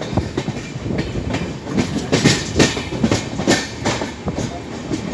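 Wheels of a moving passenger train clacking over rail joints and points, about two or three uneven knocks a second over a steady rumble, heard from an open coach door.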